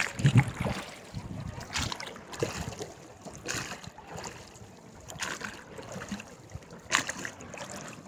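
Wind and water noise aboard a small boat on a lake, with scattered faint knocks and distant voices.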